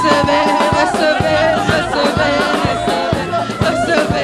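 Live worship band music with a steady drum beat of about three strokes a second, sustained instrument tones and voices singing over it.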